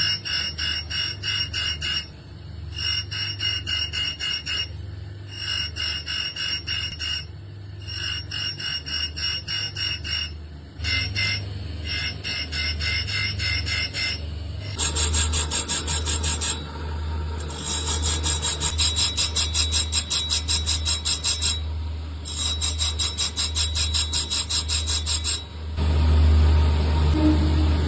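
Conch shell being filed or sawn by hand for shakha bangles: fast rasping strokes in runs of a few seconds with short breaks, louder in the second half, over a steady low hum.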